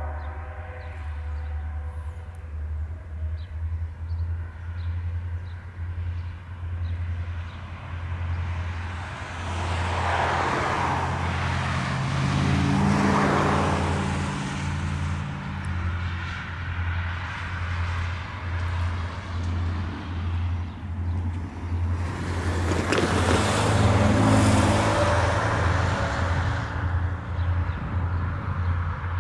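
Steady low pulsing drone of two approaching EMD SD40-3 diesel locomotives, 16-cylinder two-stroke engines. Two road cars pass by, swelling up and fading away, about ten seconds in and again about twenty-three seconds in.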